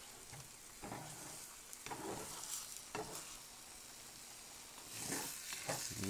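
Eggs and spinach sizzling faintly in a frying pan while a spatula scrapes and stirs them, a stroke every second or so at first and busier near the end.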